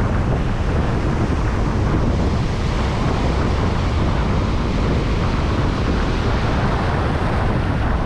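Ocean surf breaking and foaming whitewater washing in close by, with wind buffeting the microphone.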